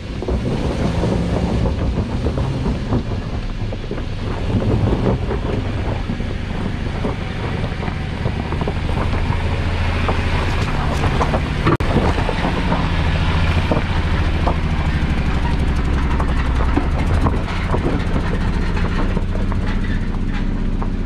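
Jeep Wrangler engine labouring at low speed up a rough dirt trail, growing louder as the vehicle comes close around the middle, with scattered knocks and crunches from the rocky ground. The engine sounds rough, almost as if it were running on less than all cylinders.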